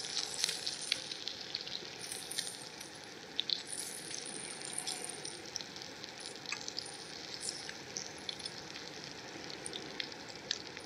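Brown trout frying in butter in a pan: a steady sizzle with scattered small pops and crackles.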